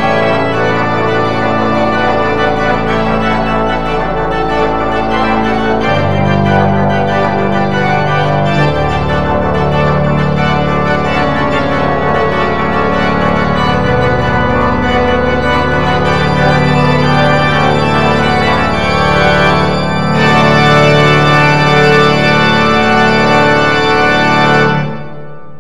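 Organ playing full sustained chords over long held bass pedal notes, growing fuller and louder about 20 seconds in. The closing chord is released near the end and rings briefly in the room.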